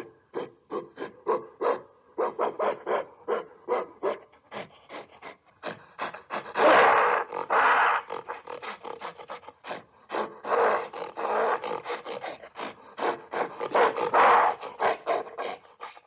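Gorilla calling: a fast run of short pulsed hoots, about four a second, broken by several longer, louder roars, the loudest a little before halfway.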